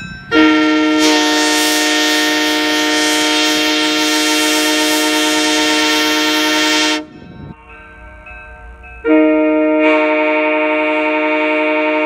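Airchime Holden K3L three-chime train horn, a sandcast Canadian-made version with a mellower tone than the die-cast K horns, sounding its steady three-note chord in one long blast of about six and a half seconds. The sound drops away to a much quieter level for about two seconds, then the horn chord comes in again and holds.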